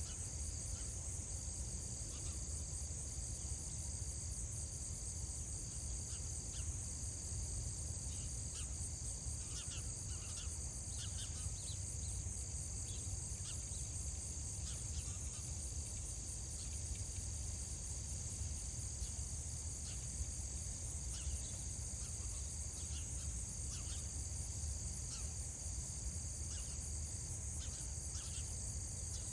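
A steady, shrill chorus of insects, crickets or similar, over a low rumble, with scattered short chirps that come and go.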